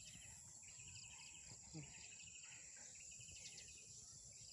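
Faint outdoor field ambience: insects chirping in short trills that repeat about once a second, over a steady high-pitched whine.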